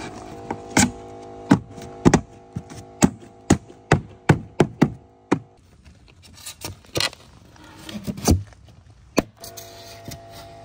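Background music with sustained held chords that drop out for a few seconds past the middle and return near the end, with a series of sharp knocks running through it.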